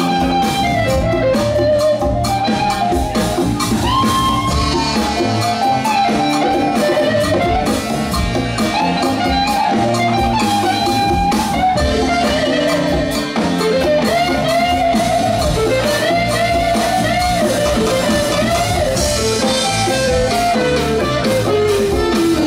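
Live funk band playing: drum kit, bass and percussion keep a steady groove under a lead melody line that bends and slides, with electric guitar prominent.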